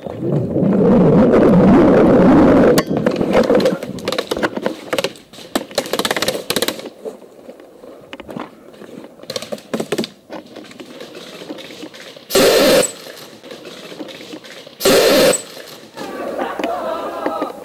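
Movement noise on an airsoft player's helmet camera while running: a dense rumble of wind and jostling, then scattered clicks and gear rustling. Two loud hissing bursts of about half a second each come around two-thirds of the way through, and muffled voices near the end.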